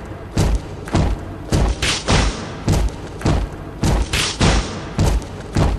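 Instrumental break of a pop dance track: a heavy kick drum hits about twice a second in an even beat, with bright cymbal or hi-hat noise above it.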